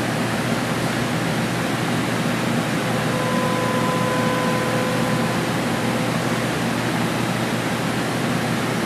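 Drill running and cutting the compression-release hole in a Harley-Davidson Twin Cam aluminium cylinder head through a fixture bushing: a steady, even whirring hiss, with a faint steady tone joining in for a few seconds around the middle.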